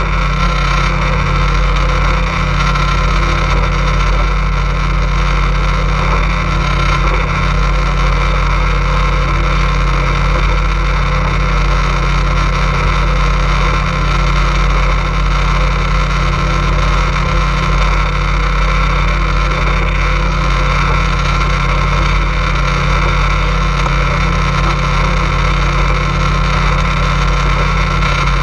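Motorboat engine running steadily: a loud, constant low drone.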